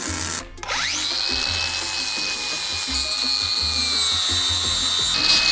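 A MIG welder crackles briefly and stops just under half a second in. Then an angle grinder spins up with a rising whine and settles into a steady high whine as it grinds down the fresh welds plugging the V8 head's emission ports. It grows louder near the end.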